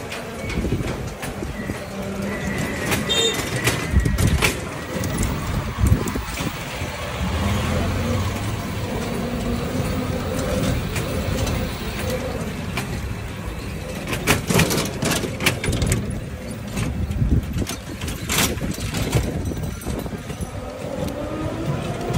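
Street sounds heard from a moving rickshaw in a narrow town lane: steady vehicle noise with a few sharp knocks and rattles, and voices in the background.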